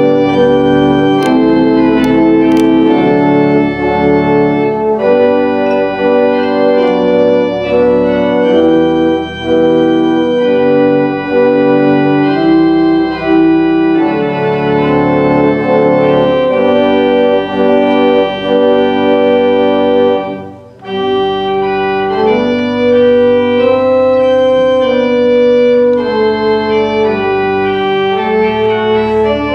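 Pipe organ playing a postlude of full, sustained chords that move from one to the next, with a brief break about twenty seconds in.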